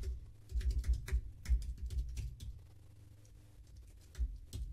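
Typing on a computer keyboard: quick runs of key clicks, a pause of about a second and a half, then another short run near the end.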